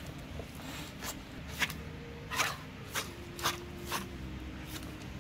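A dog playing tug-of-war with a rubber chew toy: a string of short, sharp sounds about every half second over a steady low background.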